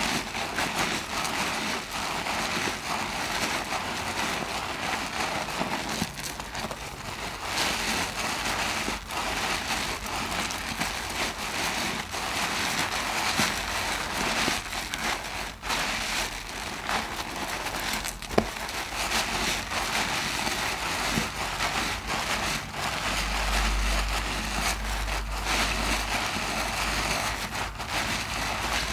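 Hands squeezing and kneading a soap-lathered mesh loofah in thick foam: steady wet squelching with a fine crackle of foam, and many small clicks.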